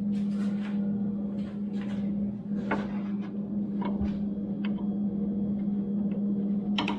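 Scattered light clicks and knocks of small hardware being handled and fitted, a few seconds apart, the sharpest near the end, over a steady low hum.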